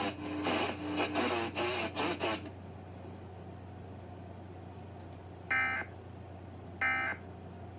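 Emergency Alert System end-of-message signal: short bursts of screechy digital data tones, about 5.5 s and 7 s in, each about a third of a second long. They come over a steady low broadcast hum and mark the close of the EAS test alert.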